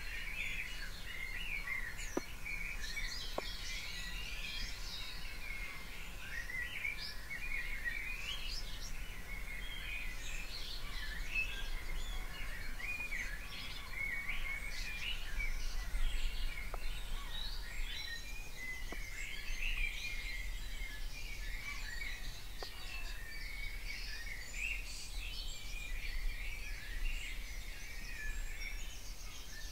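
Dawn chorus: many songbirds singing at once, their busy, overlapping phrases running without a break, over a steady low background rumble.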